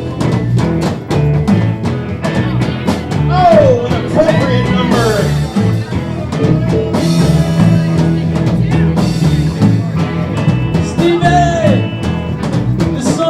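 Live rock band playing: a stepping bass line and drums under an electric guitar, with bent lead notes sliding twice.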